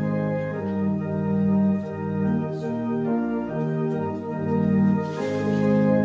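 Organ playing slow music in held chords that shift every second or so.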